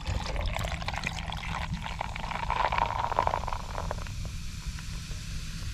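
Carbonated soft drink pouring from a plastic bottle into a plastic cup of ice, fizzing and foaming up as the cup fills.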